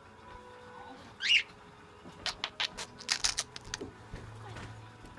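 A pet bird's short rising chirp about a second in, then a quick run of sharp clicks and taps over a second or so.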